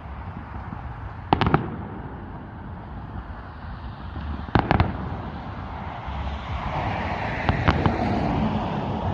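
Fireworks bursting: sharp bangs in quick clusters of two or three, three times, over a steady noisy background that grows louder in the second half.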